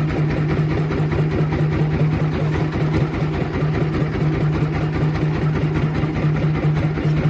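Small boat engine running steadily at low speed, a low hum that throbs several times a second.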